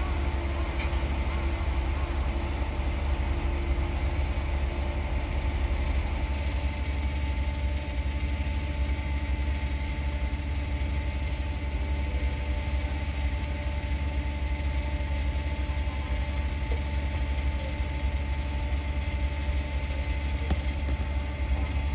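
Boeing 737-800's CFM56 jet engines at taxi idle: a steady low drone with a constant thin whine above it.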